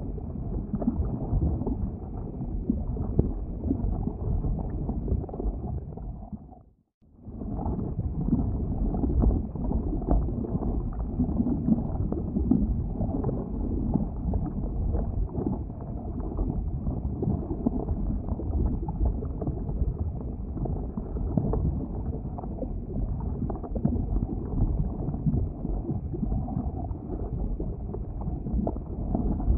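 Boiling lava: a steady, deep rumbling and gurgling with many small crackles. It fades out briefly about seven seconds in, then comes back.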